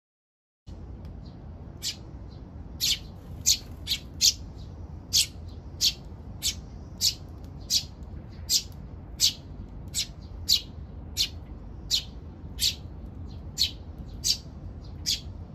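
Eurasian tree sparrows chirping, about twenty short, sharp single chirps at roughly two-thirds of a second apart, over a steady low background hum.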